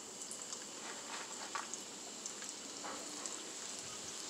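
Breaded stuffed chiles frying in hot oil in a skillet: a steady sizzle with many small scattered pops and crackles.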